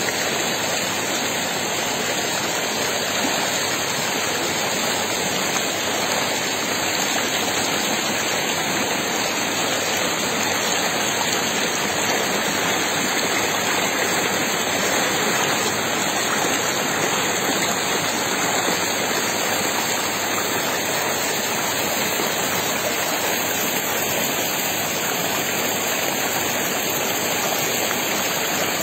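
Shallow river water rushing over boulders in small white-water rapids, a steady, even rush.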